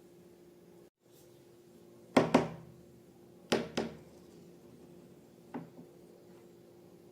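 Sharp thumps or slaps in two quick pairs about a second apart, then a single fainter one, over a steady low hum.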